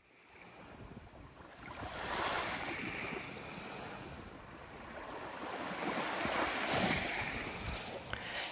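Small sea waves washing up onto a sandy beach, with two swells about four and a half seconds apart. The sound fades in over the first two seconds.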